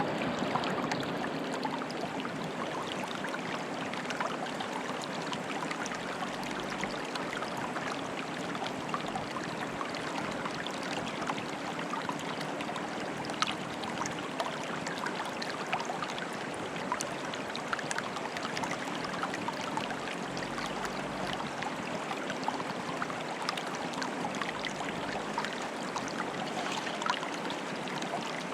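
Water in a small stream bubbling and trickling, a steady rush broken by many small, quick splashes.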